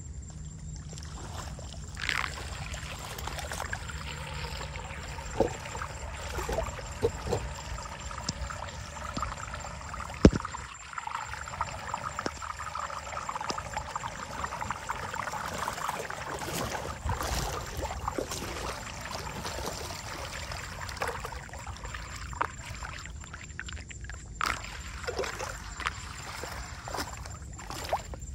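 Floodwater gurgling and trickling as it drains down a whirlpool into a street drain, with occasional sharp clicks, the loudest about ten seconds in.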